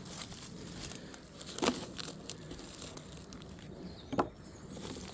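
Wooden beehive frames knocking as they are packed into a box: two sharp knocks about two and a half seconds apart, with a few lighter clicks and handling noise.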